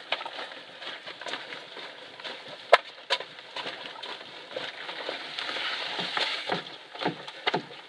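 Footsteps of a hiker carrying a canoe overhead along a dirt forest trail strewn with fallen leaves. The steps come at an uneven pace over a steady hiss, with one sharp click a little under three seconds in and heavier thumps near the end.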